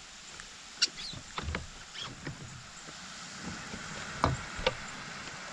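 Scattered knocks and clunks against a fishing boat's hull as a freshly caught smallmouth bass and gear are handled, over a steady hiss.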